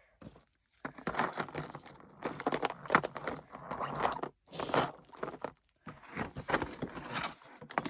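Plastic being handled: irregular crinkling and clicking in bursts, with short breaks about halfway through.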